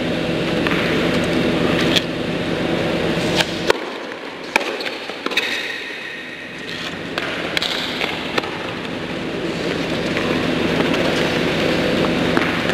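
Tennis ball struck by rackets in a doubles rally: a series of sharp pops roughly a second apart, from about three and a half seconds in to about eight and a half seconds in, over a steady hum that thins out about four seconds in.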